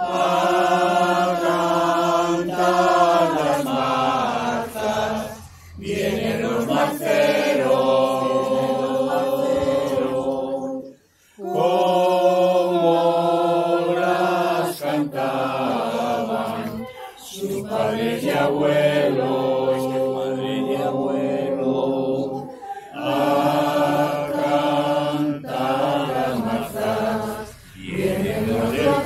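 A mixed group of men and women singing a traditional marzas song together without accompaniment, in long phrases with short pauses for breath about every five or six seconds.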